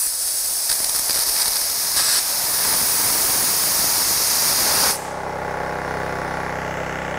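Compressed air hissing loudly out of a Makita 40V XGT brushless 2-gallon Quiet Series compressor's tank, bleeding the pressure down below its 105 PSI cut-in. About five seconds in the hiss cuts off suddenly, and the compressor's brushless motor and pump are left running with a steady low hum as it recovers pressure.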